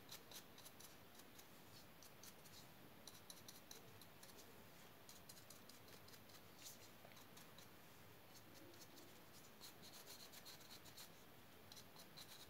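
Faint scratching of a stiff, nearly dry drybrush's bristles flicked across a resin diorama base, in quick irregular runs of short strokes.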